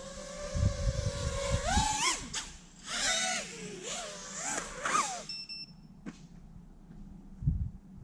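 A 5-inch FPV drone's brushless motors whine at a steady pitch, then swell up and down in quick throttle bursts for a few seconds. The motors cut off suddenly a little past halfway, followed by a short electronic beep.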